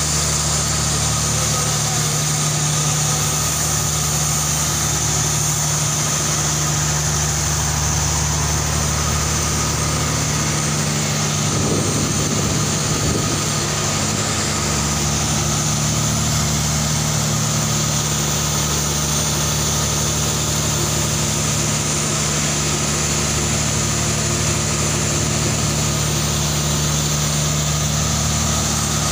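An engine running steadily at constant speed, a low even hum with a thin high whine over it, with a brief rougher patch in the low range about halfway through.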